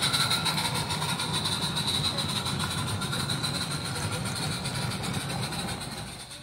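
Small-scale garden-railway freight wagons rolling past on the track: a steady rumble of wheels on rails with fast, fine clicking and a thin high tone over it. It dies away near the end as the last wagon passes.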